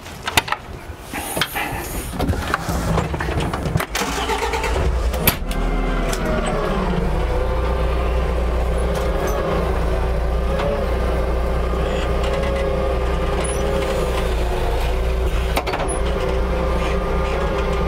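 Jungheinrich forklift's engine starting about five seconds in after a few knocks and clunks, its revs falling back and settling into a steady idle.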